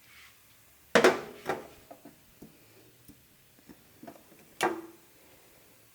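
Hand-work sounds while fitting a fuel filter and fuel line: a few sharp clicks and clanks of tools and small parts, the loudest about a second in, another just after, and one more near the end, with small ticks between.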